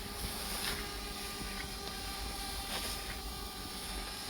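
Steady faint hum of a DJI Mavic Air quadcopter's propellers, with a constant high insect-like hiss over it.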